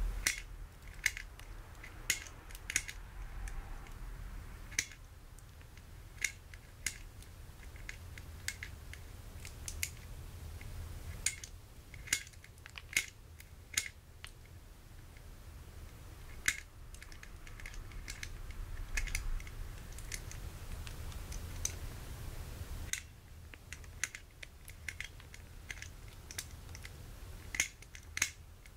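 Hand-held pet nail clipper cutting a dog's nails: a series of sharp, irregular clicks, often two in close succession, with pauses between nails.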